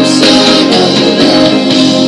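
Recorded R&B song in an instrumental passage: guitar over a steady beat of about two strokes a second.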